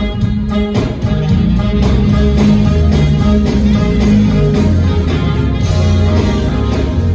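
Live band playing a soul-jazz tune: saxophone lead over electric bass, keyboards and drums, with the bass notes the loudest part.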